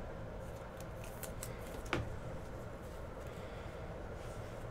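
Panini Prizm basketball cards being handled by hand and set down on a stack, giving a few light clicks and snaps, the sharpest about two seconds in, over a steady room hum.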